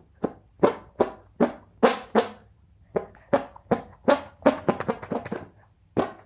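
Armpit farts made by pumping an arm against a cupped hand: a quick run of short fart-like pops, about two to three a second, with a brief pause about two and a half seconds in.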